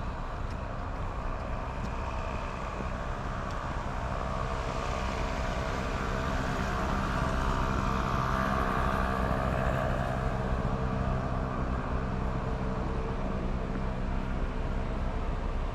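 A car driving slowly past: its engine and tyre noise swells to a peak about halfway through, then fades. Under it runs a steady low hum.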